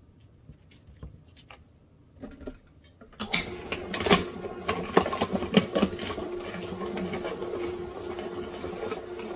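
A few light knocks as the hopper is loaded, then about three seconds in the Nama J2 cold-press juicer starts: a steady motor hum with loud cracking and crunching as the auger bites into whole carrots, easing after a few seconds into a steadier grind.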